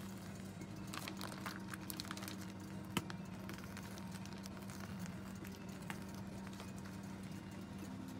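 Scattered light clicks and taps of utensils at a crepe counter, with one sharper knock about three seconds in, over a steady low electrical hum.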